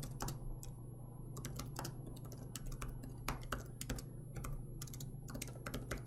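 Typing on a computer keyboard: irregular runs of key clicks, several a second, with short pauses between.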